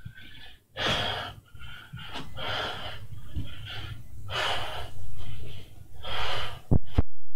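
A man's heavy breathing during a bodyweight exercise, a forceful breath about every second and a half. Near the end come two sharp knocks, then the sound cuts abruptly to a low steady hum.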